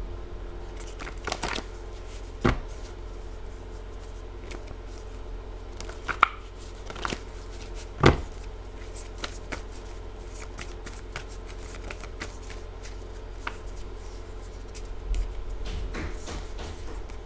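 Tarot cards being handled and shuffled by hand, giving scattered papery flicks, snaps and taps, with two sharper knocks about two and a half and eight seconds in. A steady low hum runs underneath.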